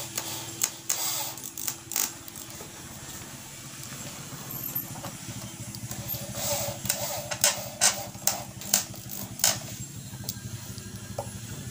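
Cordless drill driving long screws into the plywood lid of a small speaker box, its motor whirring in short runs with sharp clicks, loudest and most frequent in the second half. A low steady hum runs underneath.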